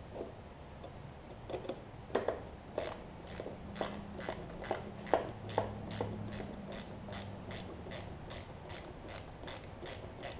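Socket ratchet wrench clicking in quick regular strokes, about three clicks a second, from about three seconds in, as it turns down the carburetor mounting bolts on a Briggs & Stratton OHV mower engine. A few scattered knocks of tool handling come before.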